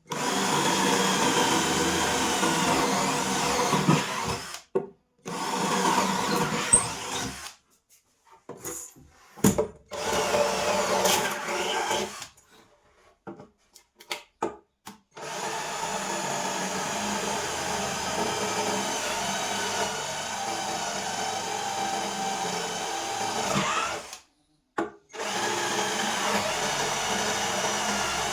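A small power tool's motor runs in several stretches of a few seconds each, stopping and starting again in between.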